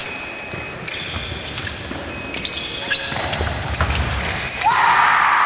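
Fencers' feet stamping and sliding on a wooden gym floor, with steel blades clinking and ringing as they engage. Near the end a loud, sustained shout starts as the touch lands.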